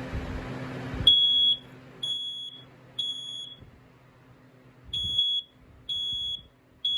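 BRK 4120B hardwired ionization smoke alarm sounding under test: loud, high-pitched half-second beeps in the three-beep temporal pattern, three beeps about a second apart, a pause, then three more. The alarm works.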